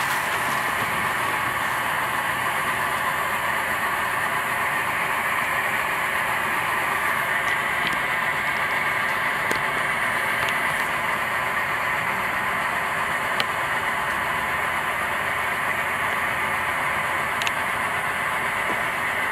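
Takei 501A pressurised kerosene burner burning at full flame with a steady rushing hiss, with a few faint ticks along the way.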